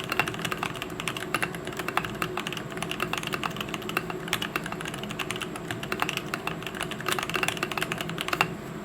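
Typing on a custom mechanical keyboard with lubed Gazzew Boba U4T tactile switches, PBT keycaps and a brass plate in an aluminium case: a dense run of keystrokes that stops a little before the end.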